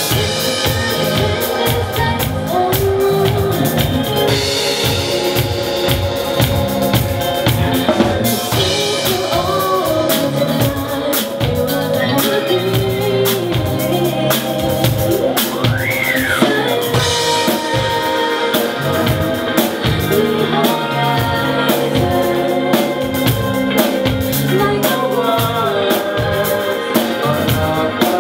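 Live band music: a drum kit plays a steady groove with rimshots, snare and bass drum under keyboard chords, with a gliding melodic lead line that sweeps up and back down about halfway through.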